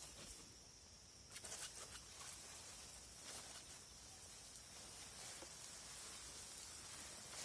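Water sprinkling from the rose of a plastic watering can onto seedlings in grow bags: a faint, steady patter of spray, after a few soft knocks about a second and a half in.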